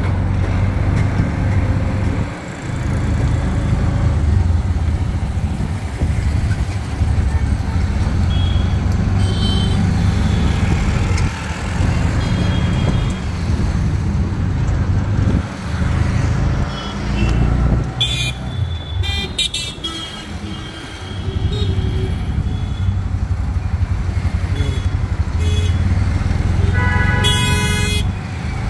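Auto-rickshaw engine running, heard from inside the passenger cab while driving in traffic, with several short horn toots and a longer horn blast near the end.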